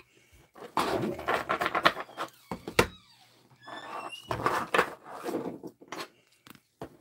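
Gloved hands handling plastic-cased trading cards on a wooden desk: rustling, scraping and clacking of the rigid card holders as they are picked up and set down, with one sharp click about three seconds in.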